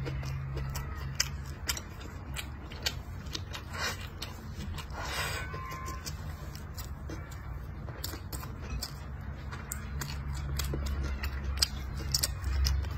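A man chewing and smacking close to the microphone while eating fried pork belly and rice, with many small wet mouth clicks and light taps of chopsticks against the bowl, over a steady low hum.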